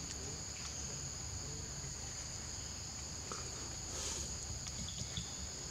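Steady high-pitched chorus of insects droning on two unbroken pitches, with a brief hiss about four seconds in.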